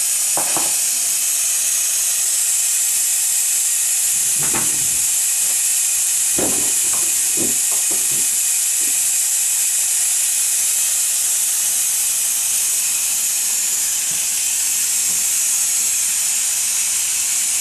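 Electric pressure cooker venting steam through its pressure-release valve after cooking: a loud, steady hiss, with a few light knocks in the middle.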